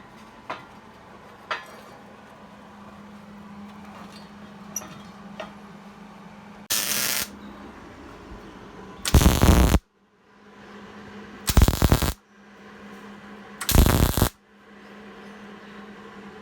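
Welding arc crackling in short tack-weld bursts: a brief quieter one about seven seconds in, then three loud ones about two seconds apart, over a steady low hum. The metal is wet between the pieces, which the welders think is probably why it isn't welding properly.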